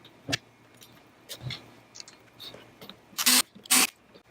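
Two brief bursts of a cordless electric screwdriver driving screws, about half a second apart near the end, after a few light clicks of handling parts and screws.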